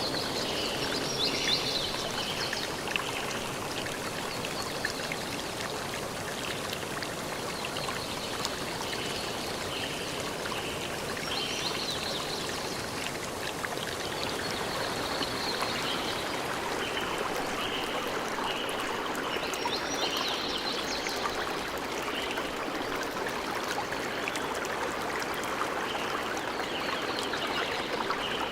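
Steady rush of a flowing stream, with birds calling now and then: short high chirps in repeated runs over the water.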